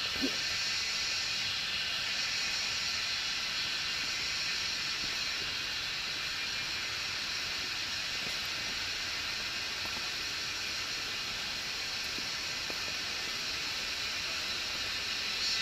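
Forest insect chorus: a steady, high-pitched buzzing hiss that holds unchanged throughout.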